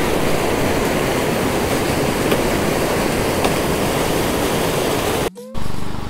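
Monsoon-swollen stream rushing over rocks as white water: a steady, loud rush that cuts off suddenly about five seconds in.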